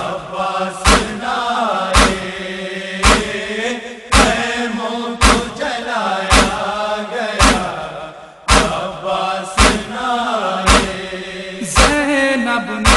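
Noha lament interlude: a chorus of voices chanting a mournful melody over a steady held low tone, with a heavy thump about once a second, the matam (chest-beating) beat that keeps a noha's rhythm.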